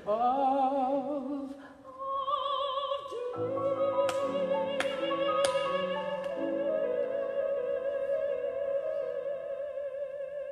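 Operatic soprano singing with vibrato, then holding one long note from about two seconds in. A grand piano comes in under it with struck chords about three seconds in, and the held note tapers off at the end.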